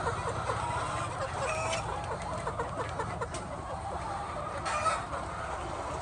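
A flock of chickens clucking, many short calls overlapping, over a steady low hum, with a few sharp clicks, the loudest about five seconds in.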